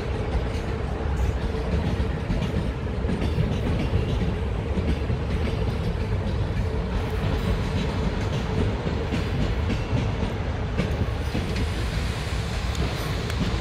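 CFR Călători passenger coaches rolling past, their wheels clicking irregularly over rail joints and points, with a steady hum underneath.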